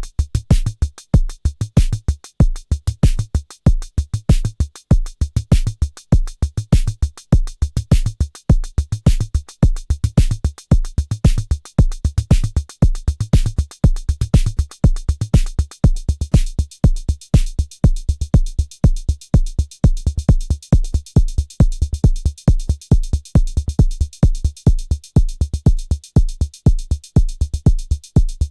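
Arturia DrumBrute Impact analog drum machine playing a steady looping beat, dry and unprocessed: deep kick-drum thumps with short sharp hi-hat-like ticks over them.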